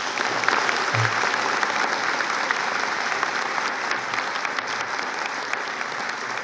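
Audience applauding: many hands clapping together in a dense, steady patter that eases slightly toward the end.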